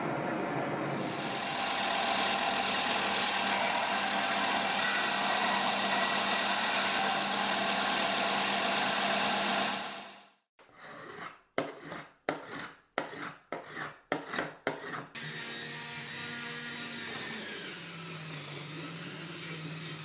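Belt sander grinding brass: a steady abrasive rasp that cuts off about ten seconds in. A run of short rasping touches follows, then a quieter steady whir with a wavering low tone.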